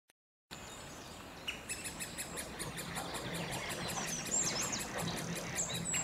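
Great spotted woodpecker nestlings calling from the nest hole: a rapid, high-pitched run of repeated calls, several a second, starting about a second and a half in, with other birdsong behind.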